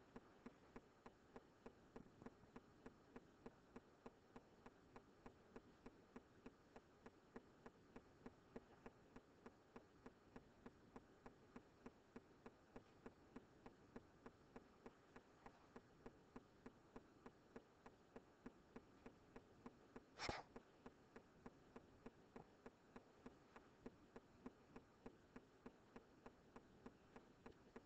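Near silence: a faint steady hum with a faint regular ticking about three times a second, and one sharp click about twenty seconds in.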